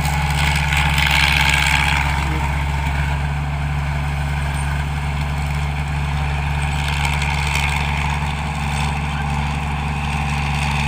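Engine of a 225 HP combine harvester running steadily, with a deep, even drone.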